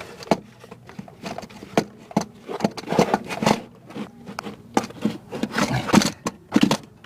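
Chevy Trailblazer starter motor being worked up and out of the engine bay, scraping and knocking against the parts around it in a string of irregular clunks and scrapes.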